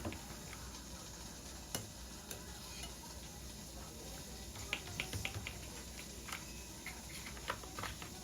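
Scattered light clicks and taps over a faint steady hiss, with a quick run of clicks about five seconds in, like small kitchen or tableware handling.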